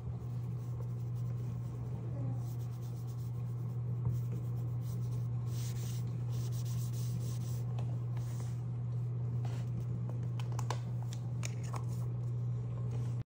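Cloth rubbing over a hardwood floor, buffing touch-up cream into a small filled hole: soft scrubbing swishes and a few small ticks, over a steady low hum. The sound cuts off abruptly near the end.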